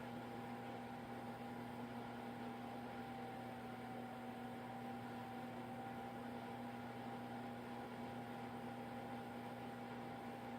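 Steady electrical hum holding a few fixed tones over a faint hiss, unchanging throughout, with no breathing rhythm.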